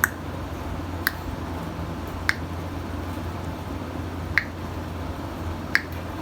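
Five sharp single clicks at uneven intervals, over a steady low hum.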